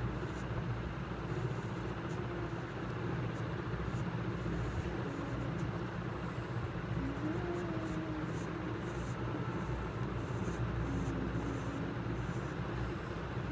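Pencil scratching on paper in repeated short strokes, more of them in the second half as the lines are shaded in, over a steady low background hum.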